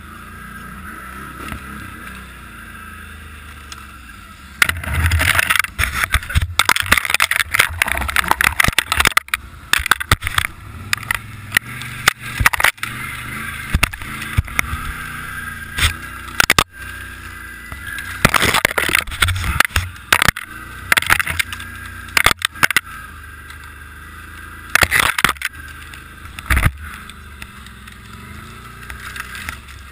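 Snowmobile engine running steadily at trail speed with a steady high whine, picked up close on the machine. From about five seconds in, it is broken by frequent loud rustling and crackling bursts as the sled pushes through deep snow and snow-laden branches.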